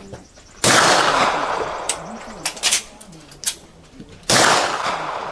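Two shots from a suppressed pistol, about three and a half seconds apart, each a sharp report with a long fading tail. A few lighter clicks fall between them.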